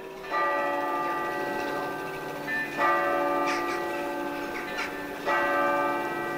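Church bells ringing: a few strikes a couple of seconds apart, each leaving a long, many-toned ringing hum that dies away slowly.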